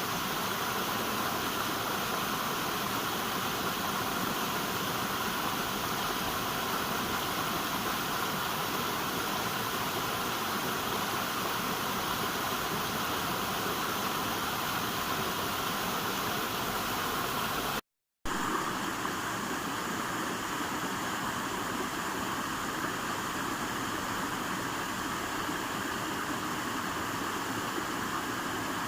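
River water rushing steadily, a continuous even noise. It cuts out completely for about half a second roughly two-thirds of the way through, then carries on with a slightly different tone, like a splice in the recording.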